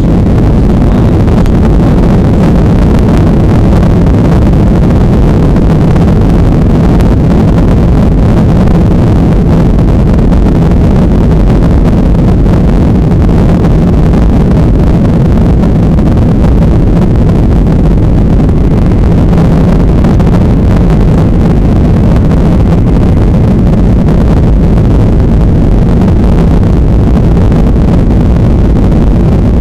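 Boeing 737-800's CFM56-7B jet engines at takeoff thrust heard from inside the cabin during the takeoff roll, a loud, steady low noise that holds level throughout.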